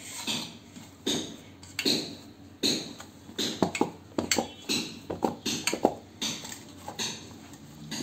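Hand kneading soft scalded rice-flour dough in a stainless steel bowl: a repeating rhythm of squishing presses, about one a second, with sharp clicks and taps in the middle.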